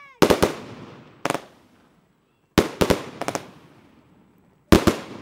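Fireworks and firecrackers going off: about four bursts of sharp bangs, several cracks in quick succession in most bursts, each fading away in an echoing tail.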